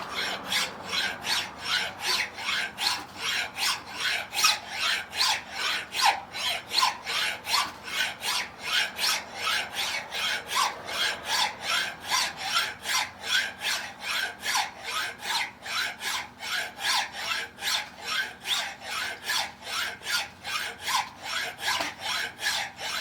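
A hand file rasping across a workpiece in a vise in steady, even strokes, about three a second. It is a rocking stroke used to file a radius onto the edge.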